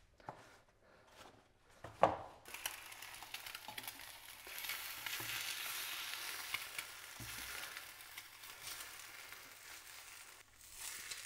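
Fried egg sizzling in a non-stick frying pan. It is a steady hiss that starts suddenly a couple of seconds in and dies away near the end.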